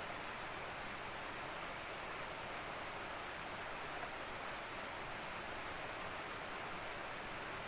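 Steady rushing of fast-flowing river water, an even unbroken noise.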